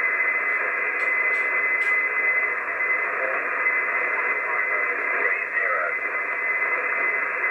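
Static hissing from an ICOM IC-751 HF transceiver's speaker on a 6.5 MHz marine channel, the noise cut to a narrow voice-band passband as on single sideband, with a steady thin whistle running through it.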